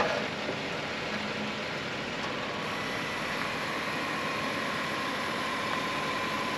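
Jeep Wrangler's engine idling steadily while it crawls slowly over boulders.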